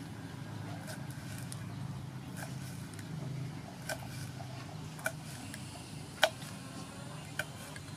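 Kitchen knife slicing small red chillies on a wooden chopping board: sharp knocks of the blade on the board, faint at first, then about one a second in the second half, over a low steady hum.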